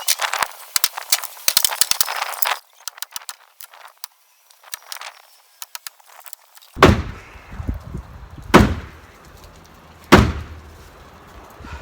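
Rapid crackling and snapping for the first couple of seconds, then three heavy sledgehammer blows on the wooden shed, each about a second and a half to two seconds apart, with the timber not giving way.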